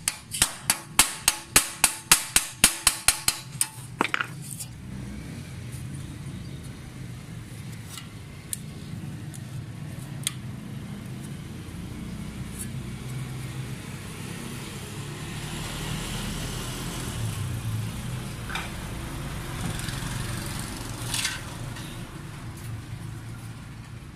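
Hand hammer striking the metal hub plate of a pedestal fan blade in quick taps, about three or four ringing strikes a second, stopping about four seconds in. After that a steady low rumble continues with a few faint clicks.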